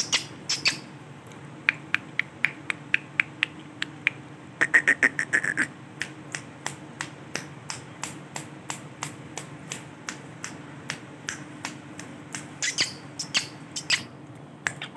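Male ringneck parrot making a rapid series of short, sharp clicking chirps, about three a second, with a quick run of louder chirps around five seconds in and a few louder calls near the end.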